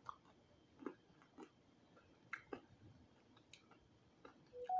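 Soft, sparse chewing of crispy roasted quail: faint mouth clicks and small crunches at irregular intervals. A short hummed note comes near the end.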